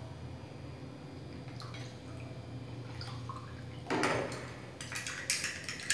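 A few faint clicks, then from about four seconds in a quick run of clinks and scrapes: a metal utensil and a small glass yogurt jar knocking against a plastic bowl of milk as starter yogurt is scooped in and stirred.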